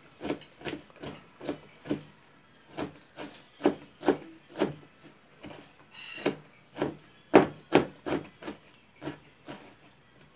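Kitchen knife chopping ginger finely on a plastic cutting board: a steady run of short, sharp knocks, about two a second.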